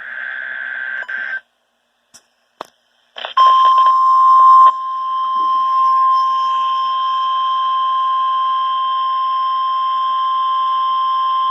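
NOAA Weather Radio test broadcast: a burst of SAME digital header data screech ends about a second in, then after a short pause with a couple of clicks, the single steady 1050 Hz warning alarm tone sounds for about nine seconds. The tone starts louder and choppy for its first second and a half, then holds level.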